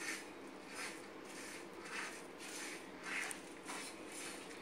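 Dry-roasted whole spices and curry leaves being mixed across a flat tawa by a hand holding a cloth: soft scraping swishes, a little under two a second.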